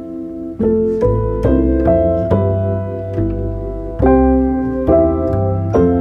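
Background piano music, slow notes and chords struck one after another, a new one every half second to a second, each fading before the next.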